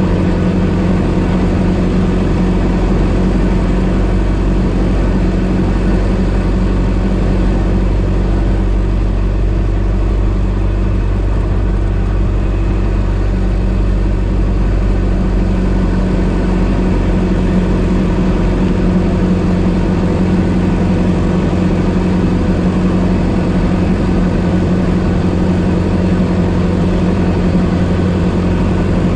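1926 Ford Model T's four-cylinder side-valve engine running steadily while the car is driven, at an even pitch and level.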